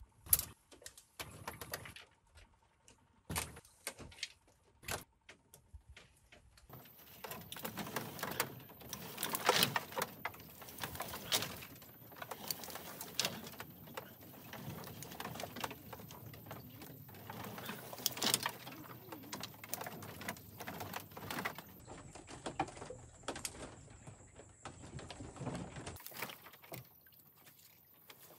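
Dry vines and brushwood rustling and crackling as they are handled and laid over a bamboo roof frame, with many small snaps and clicks. Scattered at first, then a dense run of crackling through the middle.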